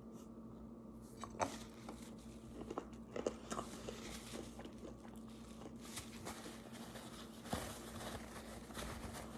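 Person biting and chewing a rock-hard, over-microwaved chocolate chip cookie: scattered crunches and cracks, over a steady low hum.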